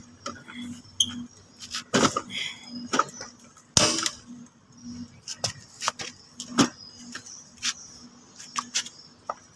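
Irregular metallic clicks and clanks of a box spanner and the front axle spindle being worked loose and slid out of a scooter's front wheel hub, the loudest knock about four seconds in.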